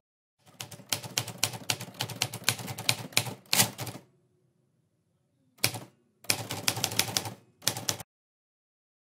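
Typewriter sound effect: rapid key clacks in a steady run of about three and a half seconds, then three shorter runs after a pause, stopping about eight seconds in.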